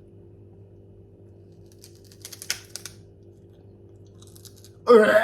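A short run of crisp crackles about two to three seconds in, from a bite being taken out of a Snack a Jack rice cake. A brief loud vocal noise follows near the end.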